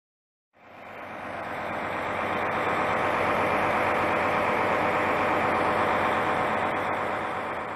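Tour coach's diesel engine idling steadily, fading in just after the start.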